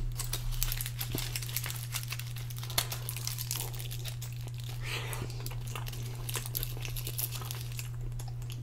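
Aluminium foil crinkling and crackling in the hands as a foil-wrapped donair wrap is held and bitten into, over a steady low hum.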